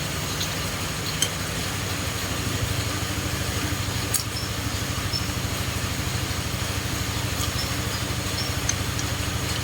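A motor running steadily with a low, pulsing hum, a little louder from about two seconds in, with a few faint clicks over it.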